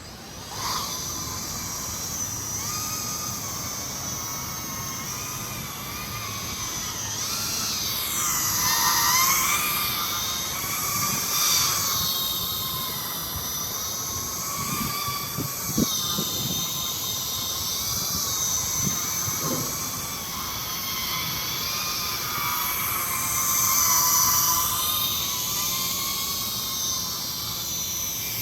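Brushless motors and propellers of a 260 mm FPV racing quadcopter whining in flight. They start about half a second in, and the pitch swoops down and back up with throttle changes, most deeply about a third of the way in and again near the end. A few low thumps come near the middle.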